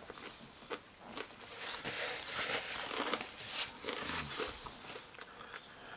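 Kitchen paper towel rustling and crumpling as it is handled, in irregular bursts, along with chewing of crispy fried chicken.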